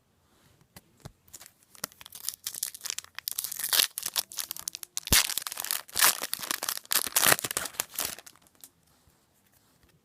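A trading-card pack wrapper being torn open and crinkled by hand, a run of crackling and tearing that starts about a second in and stops near the end.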